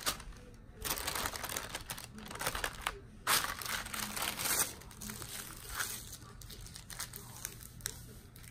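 A thin protective cover sheet crinkling and rustling as it is handled and smoothed flat by hand, loudest in the middle and fading to faint rustling after about five seconds.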